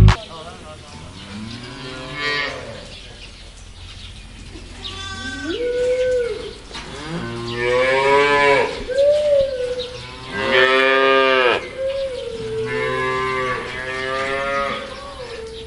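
Cattle mooing repeatedly, about five long calls a second or two apart, each rising and then holding; the loudest comes a little after the middle.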